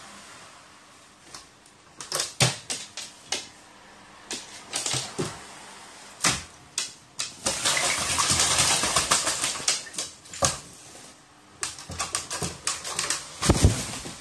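Crow bathing in a plastic basin of water, splashing in bouts: scattered splashes, then about three seconds of continuous vigorous splashing, then more splashes and a heavy thump near the end.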